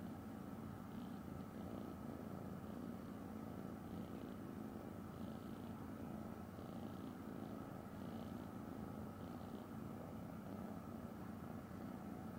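Ragdoll cat purring steadily while being stroked under the chin: a low, even, continuous rumble.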